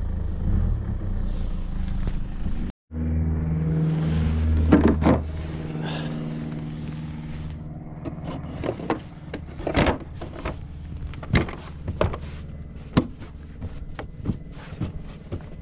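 Mercedes W204 C-Class 2.2 CDI (OM646) four-cylinder diesel idling steadily, now that the high-pressure regulation fault has been cleared. The sound drops out briefly about three seconds in, and several sharp knocks come in the second half.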